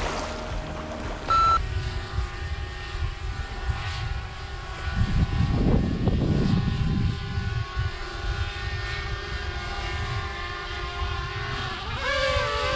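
Small quadcopter drone hovering close by, its propellers giving a steady multi-toned whine over a low rumble of wind on the microphone. Near the end the whine wavers in pitch as the drone is brought down to be caught by hand.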